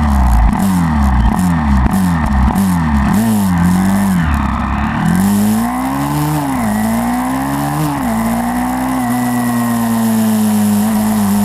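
Small single-cylinder four-stroke engine of a YCF 150 supermoto pit bike being ridden hard: the revs climb and drop in quick short bursts about twice a second, then pull up in two longer rises and hold steady and high.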